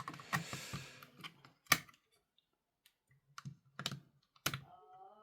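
Irregular sharp clicks and taps of hard plastic being handled: the DIY radio's battery holder and case being fiddled with while double-A batteries are fitted.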